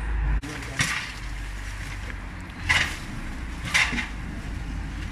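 Dry ivy and bramble stems rustling and crunching as someone pushes through an overgrown passage: a few short crunches about a second apart, over a low steady rumble.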